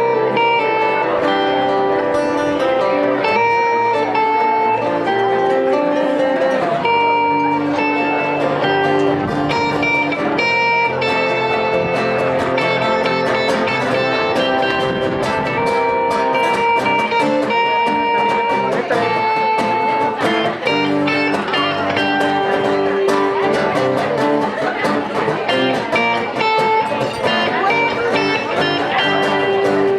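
Guitar-led music playing continuously, with long held notes.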